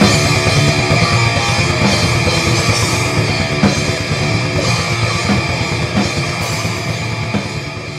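Guitar and drum kit playing a rock demo recorded onto cassette tape, the sound growing steadily quieter toward the end.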